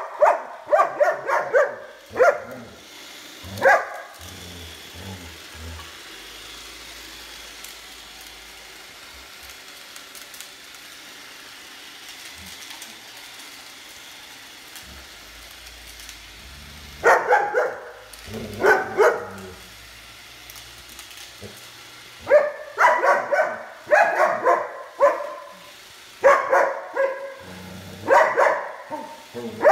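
A German Shepherd barks repeatedly at a robot vacuum, in quick volleys of sharp barks. After the first few seconds there is a stretch of about thirteen seconds without barking, in which only a low steady hum of the vacuum running is heard. The barking then starts again and comes in more volleys to the end.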